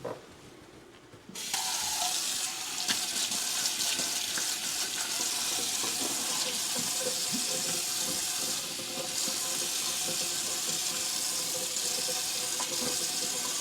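Kitchen sink tap turned on about a second and a half in, then water running steadily into the sink, with scattered light knocks of dishes being washed.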